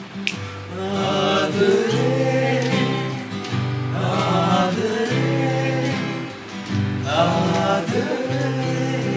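Voices singing a song together with guitar accompaniment.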